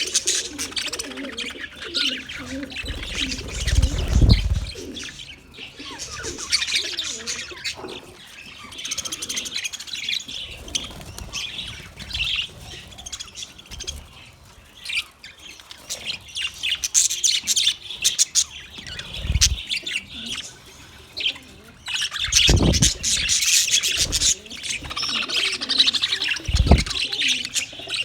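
Several small birds chirping and twittering continuously in a dense, overlapping chorus, with a few brief low thumps scattered through it.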